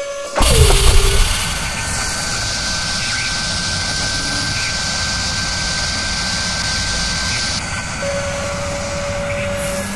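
Sound-effect whir of a power drill spinning and cutting metal: a sudden loud hit with a falling whine at the start, then a steady rushing, jet-like machine noise with a high held tone, its hiss dropping away near the end as a lower tone comes in.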